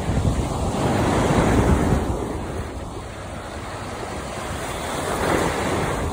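Sea waves washing and breaking, with wind on the microphone; the wash swells louder about a second in and again near the end.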